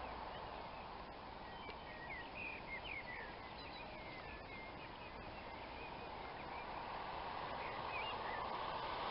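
Songbirds chirping in short rising and falling calls over a steady outdoor hiss. Near the end a car's tyres hissing on the wet road grow louder as it approaches.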